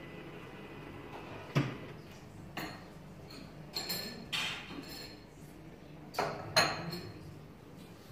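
China cups, saucers and cutlery clinking in a breakfast room: about six separate sharp clinks with a short bright ring, the loudest about a second and a half in and again about six and a half seconds in.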